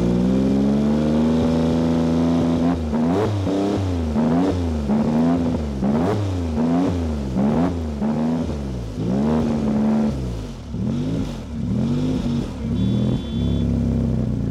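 Porsche engine of over 600 PS revved while standing still, with a heavy rumble. It is held steady at revs for country-road speed, then blipped up and down about ten times, then held steady again near the end.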